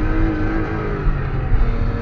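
BMW E34 running on the road, heard inside the cabin: engine note over a heavy low rumble of road and tyre noise, the engine pitch easing down about half a second in.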